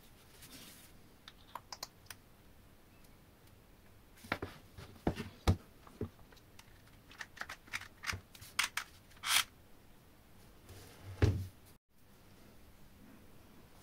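Small metal and wooden parts of a jeweler's saw being handled and set down on a workbench: scattered sharp clicks and knocks, a quick run of clicks a little past halfway, one short scrape, and a last knock shortly before the sound cuts off.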